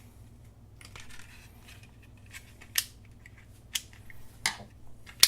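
Small screwdriver turning a screw back into a plastic multimeter case: a light scrape, then four sharp clicks about a second apart, the last one the loudest.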